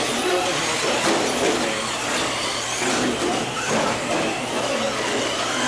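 Electric motors of Traxxas Slash RC short-course trucks whining as they race, the pitch gliding up and down as the trucks speed up and slow down.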